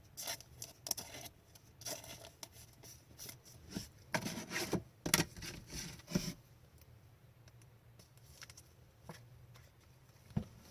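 Hockey trading cards being handled: short scrapes and slides of card stock rubbing against card, dense for the first six seconds or so, then only a few faint clicks.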